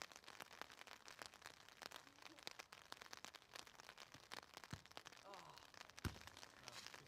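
A soccer ball is kicked hard with a single sharp thud about six seconds in, after a softer touch of foot on ball a little earlier. A faint, dense crackle of light rain runs underneath.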